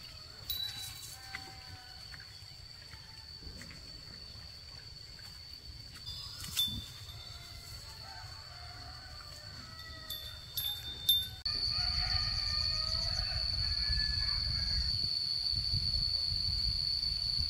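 Outdoor ambience: a steady high-pitched tone throughout, with a low rumble and a few sharp clicks and knocks. About two-thirds in, the whole sound abruptly gets louder.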